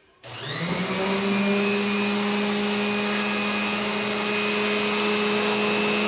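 Dayton AC/DC gearmotor starting suddenly, whining up to speed in under a second and then running steadily with a high whine. It starts the moment its hot lead goes into the receptacle because its reversing switch was left on.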